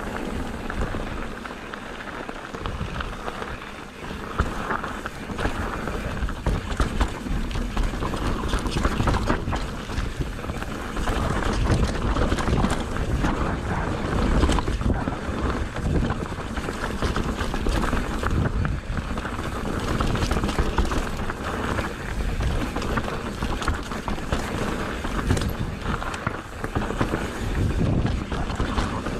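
Wind buffeting the microphone: a continuous low rumbling rush that swells and dips.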